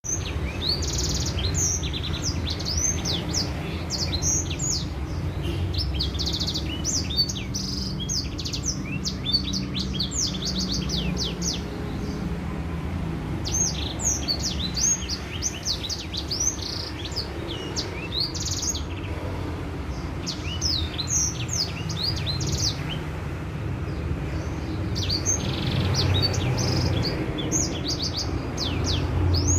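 Edelsanger songbird singing long, rapid phrases of high chirps and trills, pausing briefly now and then, over a steady low background rumble.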